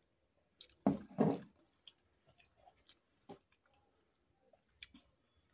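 Close-up eating sounds while eating steamed momos: two louder wet, squishing mouth sounds about a second in, then scattered small clicks and taps.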